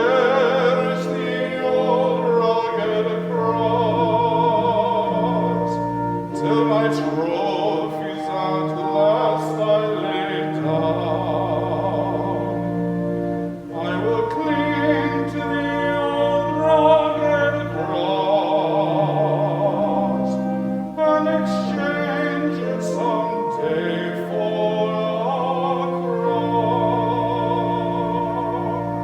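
Classical-style singing with vibrato over a keyboard accompaniment that holds long, steady low notes, a sacred song performed during a church service.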